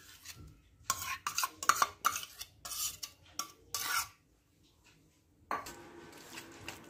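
A spoon scraping and clinking against a bowl in a quick run of strokes as ginger-garlic paste is spooned into raw chicken, stopping about four seconds in; after a short gap a faint steady hum follows.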